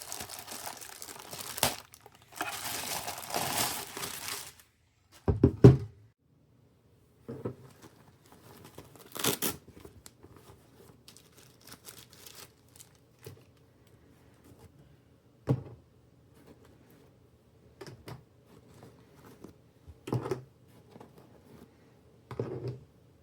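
Packaging crinkling and tearing for about four seconds, then a heavy thump and scattered light knocks and clicks of PC parts being handled.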